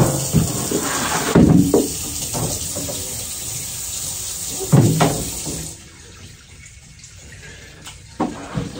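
Water running from a faucet into a utility sink and splashing, with heavy knocks from a hard-sided cooler being tipped and handled. The running water stops suddenly a little past halfway, and two more knocks come near the end as the cooler is set down.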